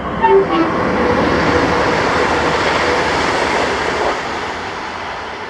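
ScotRail Class 380 electric multiple unit passing, a steady rush of wheel and rail noise that eases off after about four seconds. Two short tones sound right at the start.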